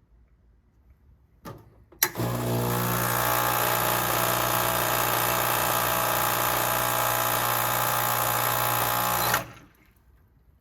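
Espresso machine pump switching on with a click about two seconds in, buzzing steadily for about seven seconds while pulling a shot, then cutting off. The brew pressure is not reaching its normal range, which the owner takes for something wrong with the machine.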